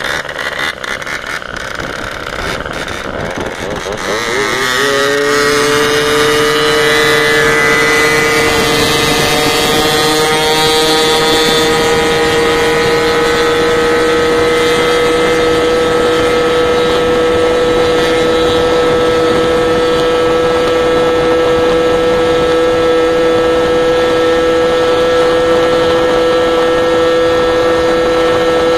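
Small two-stroke moped engine, rough and uneven for the first few seconds, then rising in pitch about four seconds in and settling into a steady high-revving whine as it is held at full throttle on an uphill climb.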